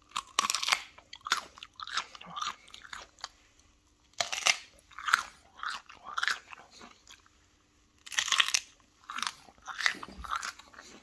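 Biting into and chewing a whole raw broccoli head: crisp, wet crunches in irregular clusters. A loud bite comes about every four seconds, each followed by smaller chewing crunches.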